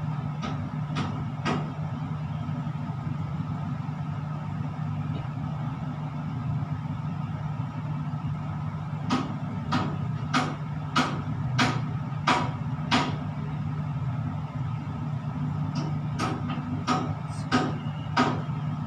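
Steady electrical machinery hum inside a tower crane cab, with runs of sharp clicks about two a second: three near the start, a longer run of about seven around the middle and five more near the end.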